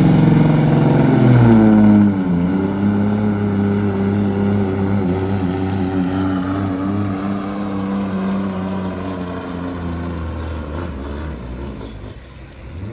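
Semi truck's diesel engine under full load, pulling a weight-transfer sled down the track. Its note drops about two seconds in, then holds a steady drone that fades as the truck moves away near the end.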